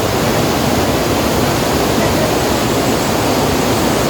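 Steady loud rushing of river water, an even hiss across all pitches with no change in level.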